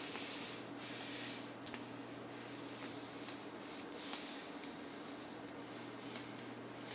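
Clear application tape being slowly peeled back off a vinyl sticker, wriggled side to side: a faint papery rustle that swells and fades, with a few soft ticks.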